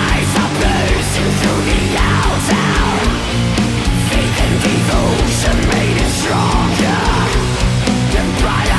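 Recorded black metal music, loud and dense: guitars over a fast run of sharp percussive hits.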